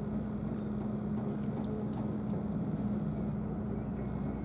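A motor running steadily with an even low hum that does not change.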